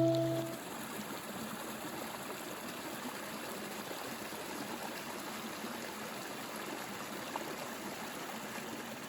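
Steady rushing of flowing water, as from a creek, after a ringing musical tone fades out in the first half-second.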